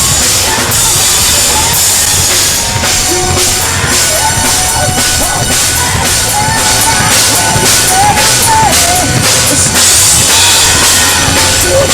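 Live rock band playing an instrumental passage with no vocals, the drum kit hitting hard under a bending melodic line.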